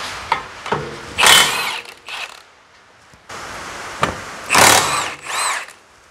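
Cordless power tool with a socket on an extension spinning out the two 17 mm brake caliper bracket bolts. It comes in two bursts about three seconds apart, each with a whine that rises and falls away.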